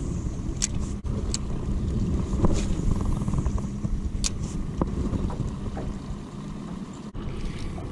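Small boat's outboard motor running steadily at trolling speed, a constant low hum, with a few short clicks over it.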